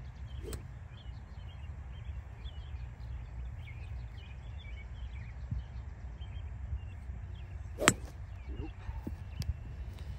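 A golf club strikes a ball once, a sharp crack about eight seconds in, with a fainter tick or two around it. Wind rumbles on the microphone and birds chirp in the background.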